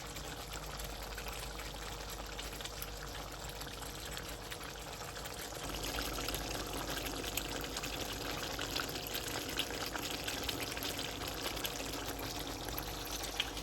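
Chicken karahi simmering in the pan, a steady hiss with fine crackling that gets louder about halfway through.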